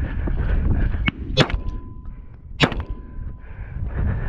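Footsteps crunching over a stony ploughed field, with wind rumbling on the microphone. Four sharp clicks of stones knocking, the strongest about one and a half and two and a half seconds in, and a faint steady tone for about two seconds in the middle.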